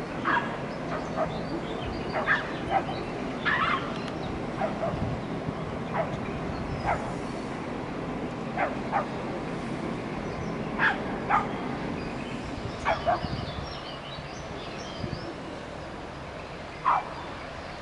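Short, sharp animal calls, about fifteen of them at uneven intervals, over a steady background noise.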